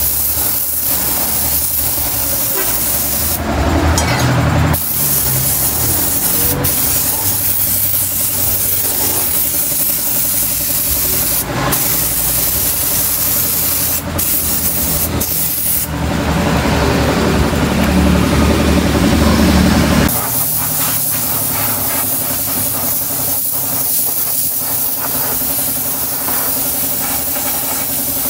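Gravity-feed air spray gun hissing steadily as it sprays paint, with a few brief breaks where the trigger is let off.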